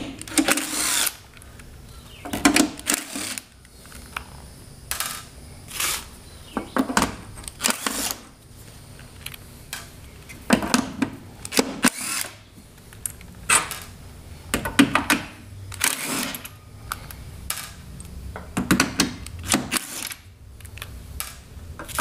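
Cordless power driver running in short bursts, about ten in all, as it spins the 5/16 hex-head case screws out of a welder's sheet-metal back panel.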